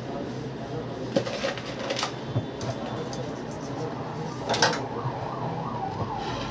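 Plastic cake scraper working over cream icing on a cake turntable: handling noise with a few light clicks and a sharper knock about four and a half seconds in, over a steady low hum.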